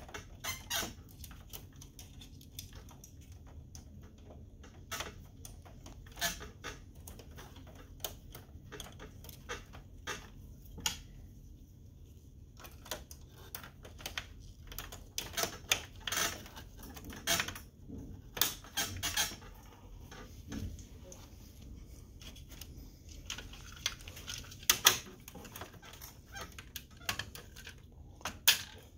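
Irregular clicks, taps and knocks of hard plastic printer parts being handled and seated inside an open HP Color LaserJet M452dn, as its transfer belt and rear paper-path assembly are fitted back in.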